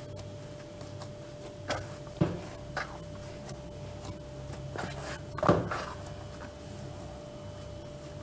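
Soft yeast dough being kneaded by hand in a plastic bowl: a few scattered soft thumps and knocks as the dough is pressed and the bowl shifts, the loudest about five and a half seconds in.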